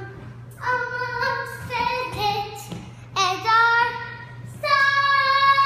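A young girl singing high, held notes in several short phrases, ending in one long sustained note near the end, her voice echoing off the bare walls and floor of an empty room.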